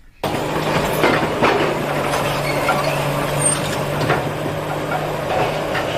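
Heavy demolition machinery running steadily with a constant engine hum, with knocks and crashes of building material breaking about a second in, again half a second later, and around four seconds in.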